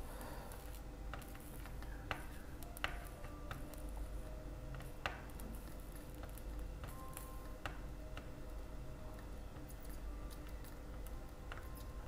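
Faint, scattered light clicks of a soldering iron tip working along the LCD contacts on a circuit board, freshly fluxed, over a low steady hum.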